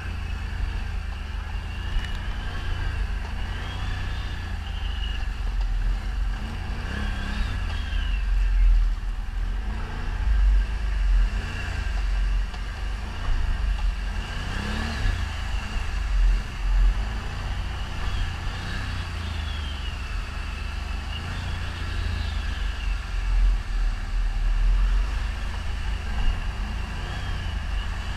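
ATV engine running under way, its revs rising and falling every few seconds as the throttle is worked, over a steady low rumble.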